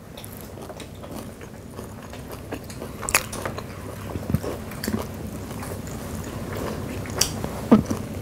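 Chewing and biting of crispy deep-fried chicken gizzards, with a few sharp crunches scattered through the steady mouth noise, the loudest about three seconds in and near the end.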